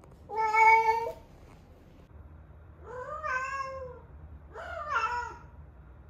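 Young female tabby cat in heat giving estrus calls: three drawn-out yowling meows, the first and loudest near the start, then two more a couple of seconds later that rise and fall in pitch.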